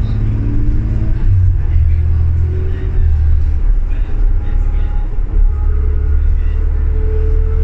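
Inside a 2006 New Flyer D40LFR diesel transit bus under way: a steady low engine rumble, with a whine whose pitch climbs several times as the bus gathers speed.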